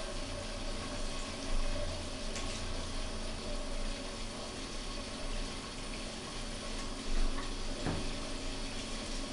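Water running steadily from a hose in a small tiled bathroom while hands scrub a soaked cat's fur, with a short knock about eight seconds in.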